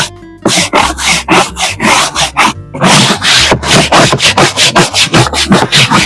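A stiff brush scrubbing wet woven plastic garden furniture in quick, rhythmic back-and-forth strokes, about four to five a second, pausing briefly near the start and again around halfway.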